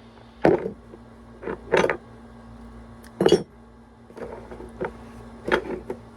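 Kitchenware being handled: a string of knocks and clatters, several of them loud, with lighter clinks later, over a steady faint hum.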